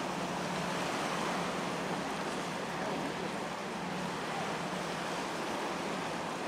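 Steady harbourside ambience: an even wash of wind and water noise with a faint low steady hum underneath.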